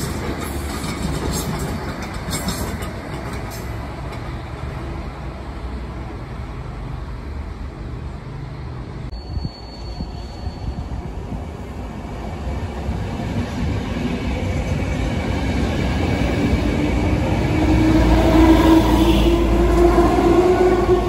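Electric trains passing: first the low, steady rumble of a passing train, then an S-Bahn electric multiple unit running in close alongside. The S-Bahn grows louder over the last several seconds, with a whine that rises slightly in pitch.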